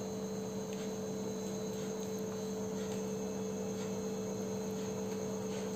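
Steady electrical hum, two low constant tones over a faint hiss.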